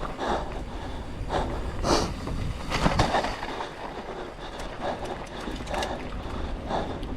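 Mountain bike descending a rough dirt trail at race pace: tyres rumbling over dirt and rocks, the bike's chain and frame rattling, wind buffeting the microphone, with two harder knocks from hits in the trail about two and three seconds in.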